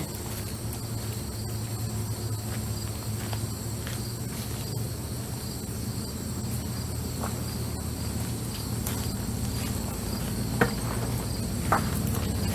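Crickets chirping steadily over a low, steady rumble, with two sharp knocks near the end.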